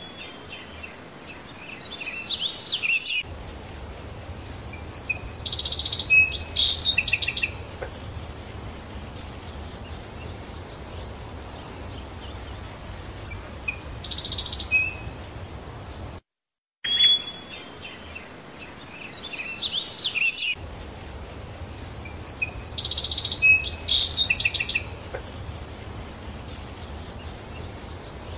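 Birds chirping and calling in short clusters of high notes over a steady outdoor background hiss. The sound cuts out briefly about halfway, then the same run of bird calls seems to repeat.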